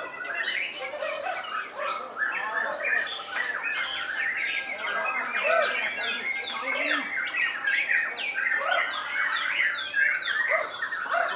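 White-rumped shamas singing: a dense, unbroken stream of overlapping quick whistles and chattering notes from several birds at once.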